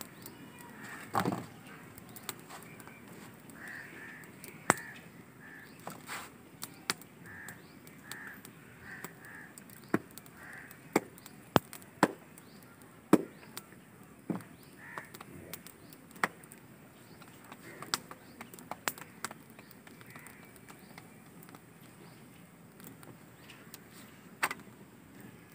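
Crows cawing in runs of short repeated calls, with scattered sharp clicks and slaps.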